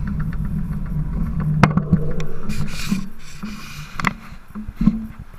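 Fixed-gear bicycle rolling on pavement: a low steady rumble with a run of quick ticks in the first two seconds and a few sharp knocks, quieter after about three seconds.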